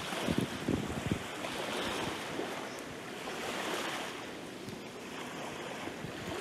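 Small waves breaking and washing up a sandy beach, the surf swelling and easing in a slow rhythm. Gusts of wind buffet the microphone in the first second or so.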